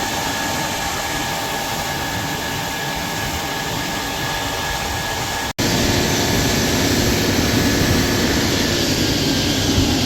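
Heavy diesel farm machinery running steadily, a loud rushing drone with a faint whine on top. A little past halfway it breaks off for an instant and resumes louder and deeper.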